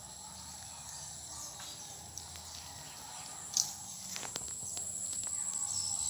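Steady high-pitched insect trilling, with one short sharp chirp about three and a half seconds in.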